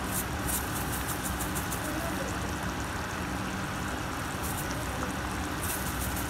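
Red tomato sauce simmering in a frying pan: steady bubbling with irregular small pops and crackles, over a steady low hum.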